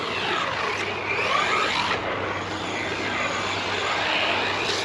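Brushless electric motor of a DEERC 200E 1/10-scale RC truck whining as it is driven, the pitch sweeping up and down again and again with the throttle.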